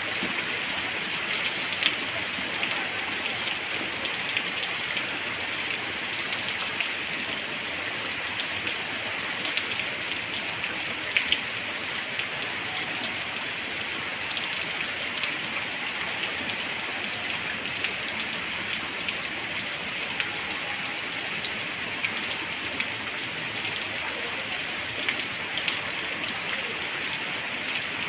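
Rain falling into a shallow puddle of standing water: a steady hiss with scattered sharp splashes of single close drops.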